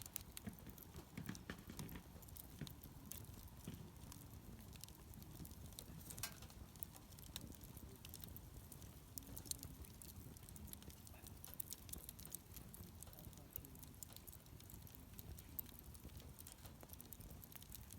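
Wood campfire crackling quietly, with irregular sharp pops and ticks over a low rumble.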